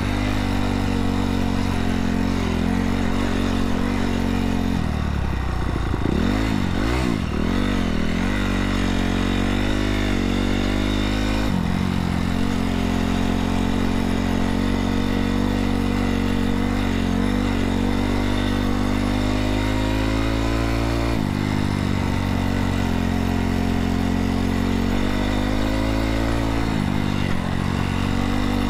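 2017 Honda CRF250R's single-cylinder four-stroke engine running as the bike is ridden, its pitch rising and falling with the throttle. A quick run of revs up and down comes about five to eight seconds in, with sudden shifts in pitch near twelve, twenty-one and twenty-seven seconds.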